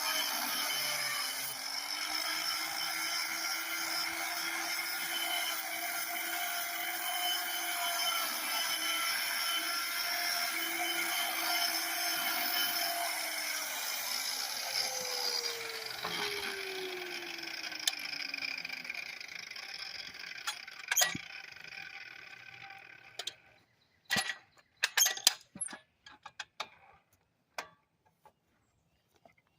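Angle grinder stripping bark from a log: a steady motor whine with rough grinding against the wood. About fourteen seconds in it is switched off and winds down in a falling whine, followed by a few scattered clicks and knocks.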